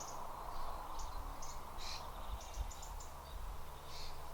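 Small birds chirping, short high calls every half second or so, over steady outdoor background noise with a low hum.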